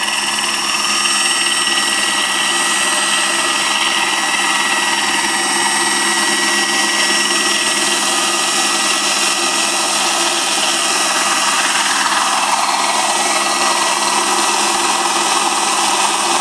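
Radio-controlled scale helicopter in flight, its motor and rotors giving a loud, steady, high-pitched whine that shifts in tone about eleven seconds in.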